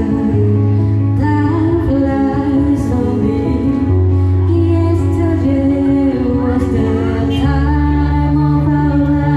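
A woman singing a melody into a microphone, amplified over backing music with long held bass notes.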